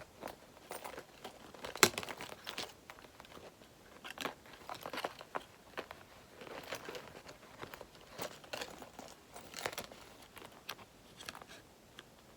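Fabric and plastic pouches being handled and set down: irregular rustling and crinkling with scattered clicks, the sharpest about two seconds in.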